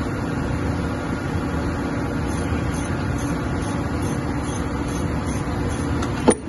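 Engine running steadily with an even drone, with one sharp knock near the end.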